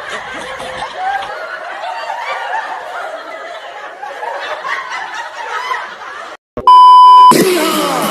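People snickering and laughing for about six seconds. After a brief cut-out comes a loud electronic beep tone lasting under a second, and then music with a voice begins.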